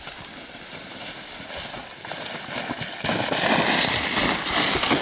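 Crunching and sliding on snow, with short crackles at first and a much louder hissing rush from about three seconds in.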